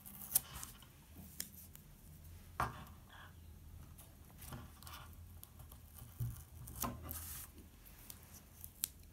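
Strips of double-sided tape being pulled off the roll and pressed down by hand onto paper: a few short, faint rips and rubs, the longest about three-quarters of the way in.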